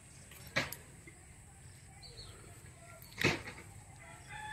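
Two short, sharp rustles about three seconds apart from hands working a fishing line and hook at close range. A rooster starts to crow just before the end.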